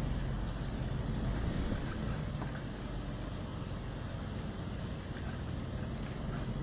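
A car driving slowly along a street: a steady low rumble of engine and road noise.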